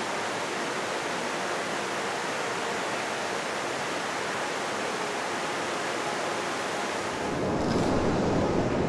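Steady rush of river water flowing over stones. It gets louder and deeper about seven seconds in.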